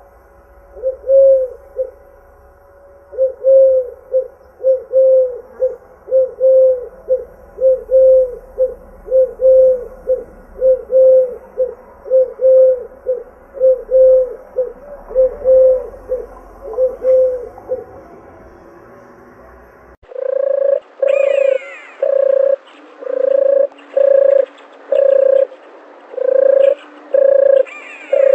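A dove cooing: a long series of short, even coos, about two a second, that stops after about seventeen seconds. About twenty seconds in, a louder series of coos starts abruptly over a different background, with a couple of brief higher sliding notes.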